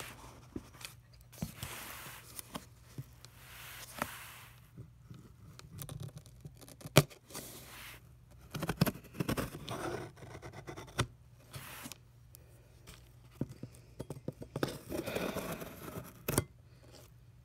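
A blade cutting and scraping along packing tape and plastic wrap on a cardboard box, in short bouts of scraping and rustling with scattered sharp clicks; the loudest click comes about seven seconds in.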